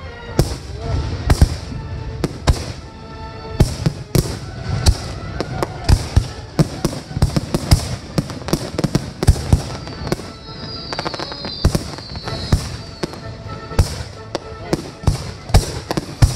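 Fireworks display: aerial shells bursting one after another with sharp bangs, several a second at times.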